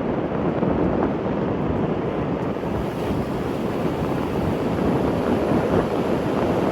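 Steady rush of wind buffeting the microphone over the noise of a moving car.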